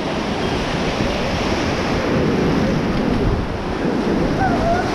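Rushing white water of the Beas River around a raft, a steady loud rush, with wind buffeting the microphone.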